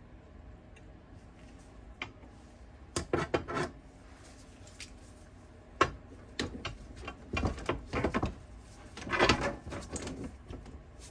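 Metal hand tools clinking and clattering on a workbench as they are picked through and handled, in several short bursts, with one sharp clack about six seconds in.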